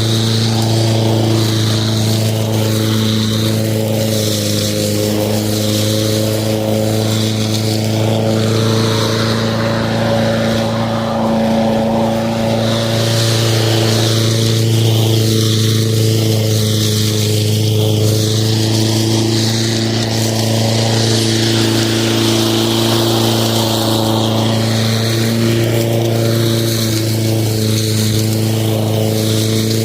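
Lawn mower running at a steady speed: a constant, loud drone with no change in pace.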